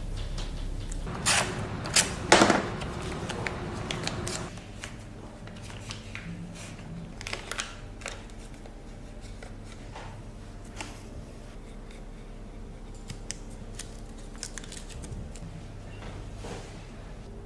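Tools being handled at a shoe-repair bench: sharp clicks and knocks, the loudest few in the first three seconds, then fainter scattered clicks over a steady low hum.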